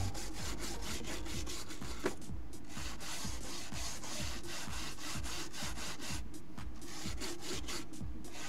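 A hand-held pad wetted with alcohol scrubbed back and forth along N scale model railroad rails to clean them: a steady run of quick rubbing strokes, with one small click about two seconds in.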